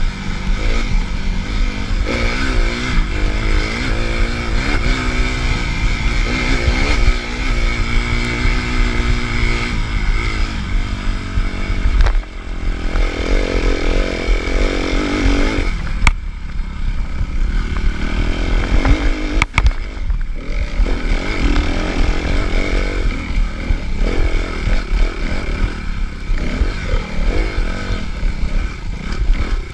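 Suzuki RM-Z250 four-stroke single-cylinder dirt bike engine under hard riding, its revs rising and falling again and again. About twelve seconds in there is a brief drop, and a few sharp knocks come later.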